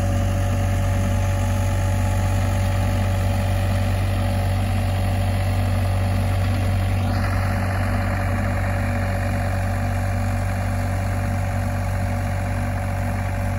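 Sany SY35U mini excavator's diesel engine running steadily as the machine travels on its rubber tracks.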